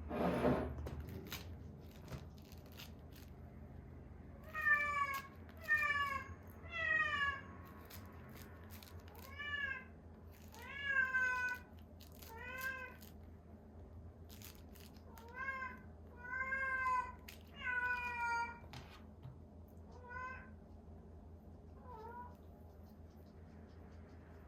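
Domestic cat meowing over and over, about a dozen short meows, many falling in pitch, spaced a second or two apart. A brief thud or rustle comes at the very start.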